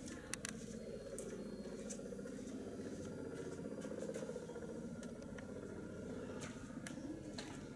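Firefighting helicopter in flight, its rotor giving a steady, rapid low beat, with a few sharp clicks over it.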